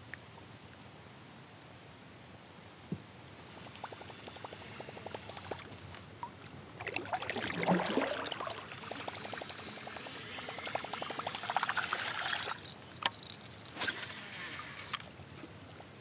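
Water pouring and trickling beside a kayak, with splashing from about halfway through. A sharp click comes near the end, followed by a short splash.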